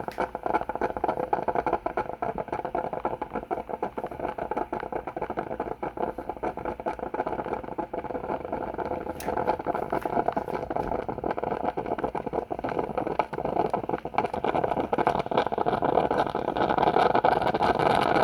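Coffee machine's water pump running steadily as it pushes water through a partly clogged water tube, with the flow still weak. It gets louder near the end.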